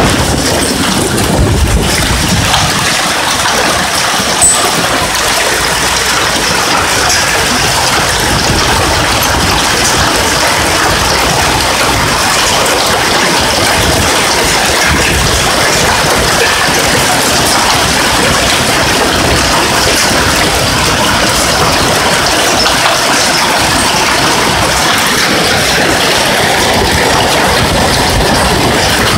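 Hailstorm: hail and rain coming down hard together, a steady, dense hiss.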